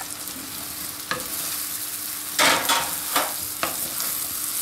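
Dhokla pieces sizzling in hot oil in a frying pan, with scrapes and knocks as they are tipped in from a steel plate and stirred with a wooden spatula; the loudest scrape comes about halfway through.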